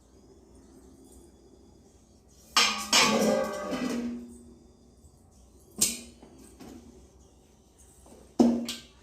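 Toy kitchenware knocked and clattered together: a cluster of clattering knocks about two and a half seconds in, then single knocks near six seconds and near the end, each ringing briefly.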